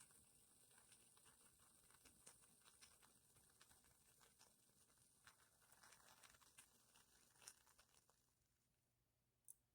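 Near silence with the faint crackling and ticking of a burning stormproof match, dying away about eight seconds in as the match burns out.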